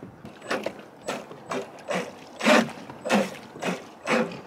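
Water slapping and splashing against a boat's hull in a quick, even rhythm, about two slaps a second.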